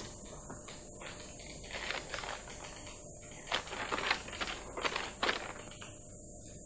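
Paper rustling in a run of short, irregular strokes about two to five seconds in, as a letter is handled and unfolded, over a steady hiss.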